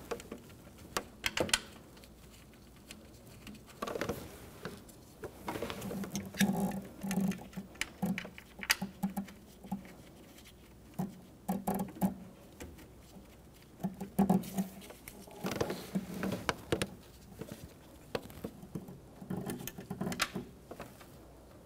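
Nitrile-gloved hands handling a metal throttle body on the engine intake and threading its mounting screws in by hand: scattered light clicks and taps of metal parts, with short bursts of rubbing and scraping every few seconds.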